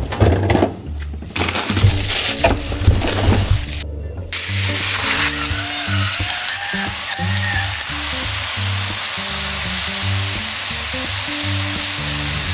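Sliced pork belly sizzling on a hot griddle, a loud continuous hiss that starts abruptly about four seconds in. It is preceded by a few clicks and knocks, with background music throughout.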